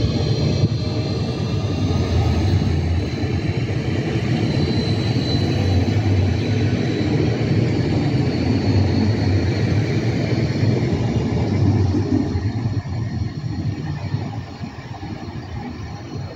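Red electric multiple unit running past on the rails and drawing away: a steady rumble of wheels on track with a high whine over it, fading in the last few seconds.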